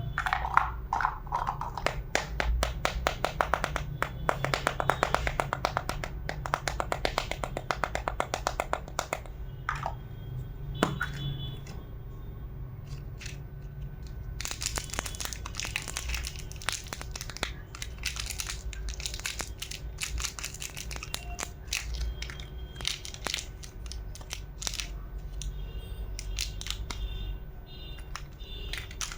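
Plastic packaging being handled and unwrapped: rapid crackling and crinkling, with scattered small clicks and taps and one sharper knock about eleven seconds in.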